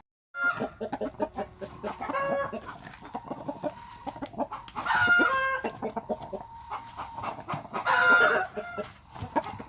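Bangkok game rooster giving short pitched calls, one about every three seconds, loudest about five and eight seconds in, with rattly crackling between them. The rooster is sick with a cold and rattling, snoring-like breathing (ngorok).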